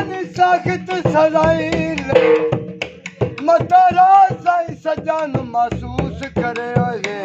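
Dohray (Punjabi folk couplets) sung over dhol: a voice holds long, wavering notes while the dhol keeps up a fast, steady beat.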